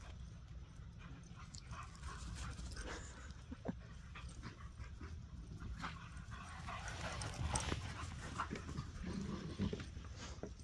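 Three dogs, one a Great Pyrenees, playing and chasing on dry grass: scattered thuds and scuffles of paws with panting, over a steady low rumble. The activity gets busiest about seven seconds in.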